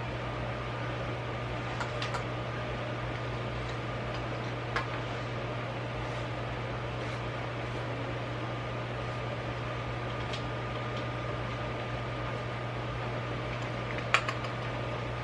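Steady mechanical hum with a faint high steady tone over it, with a few light clicks: twice in the first few seconds and a sharper one near the end.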